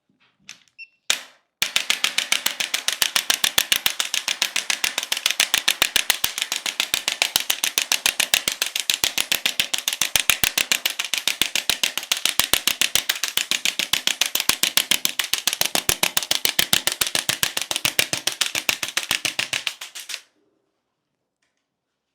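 Handheld chiropractic adjusting instrument clicking rapidly and evenly, several impulses a second, against the back of a patient lying face down, with a faint motor hum under the clicks. A couple of single clicks come first, then the run goes on for nearly twenty seconds and cuts off suddenly.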